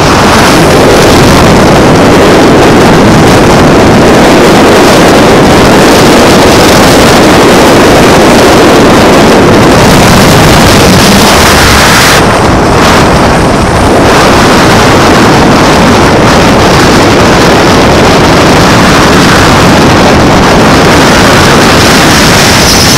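Steady, very loud wind buffeting on the microphone of a moving Can-Am Spyder, mixed with its engine and road noise. The sound dips briefly about twelve seconds in, then returns.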